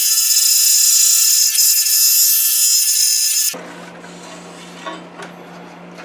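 Scroll saw cutting wood: a loud, high-pitched whine made of many tones that stops abruptly about three and a half seconds in, leaving a low steady hum.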